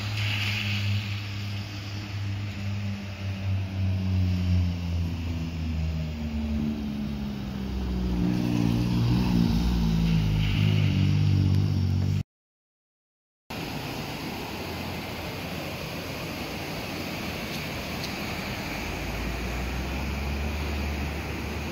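Cars driving past on a rain-wet road: engine hum that rises and falls as each one passes, with tyre hiss on the wet asphalt. About halfway through there is a brief break, then a steady rushing noise from the swollen river.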